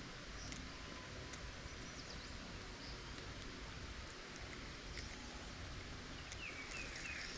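Quiet outdoor ambience: a steady low rumble and hiss with faint, scattered bird chirps, and a few quick falling chirps near the end.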